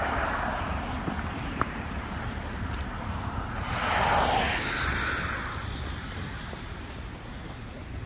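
Cars driving past on a wet, slushy road, their tyres hissing. One is passing at the start and fades, and another swells and passes about four seconds in, over a low wind rumble on the microphone.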